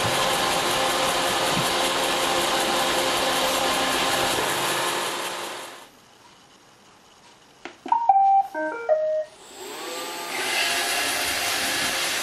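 iRobot Roomba 650 robot vacuum running, its motors and brushes whirring steadily, then winding down to a stop about halfway through. After a couple of clicks it plays a short tune of electronic beeps, then its motors spin back up.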